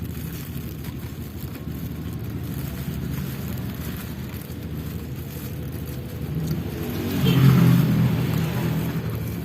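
Motor traffic: a steady low engine hum, with one vehicle passing closer and louder about seven seconds in.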